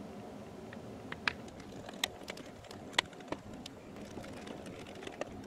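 Scattered light clicks and taps of a small screwdriver and a handheld multimeter's plastic case being handled as the meter is put back together after a fuse replacement, over faint room hum; the sharpest click comes about three seconds in.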